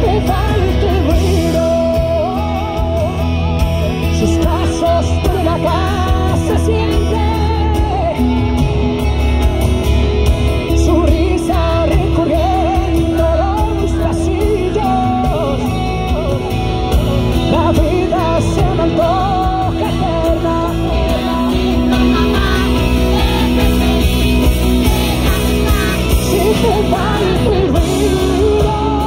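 Live band performing a pop ballad with a male lead vocal over guitar and bass, continuous and loud.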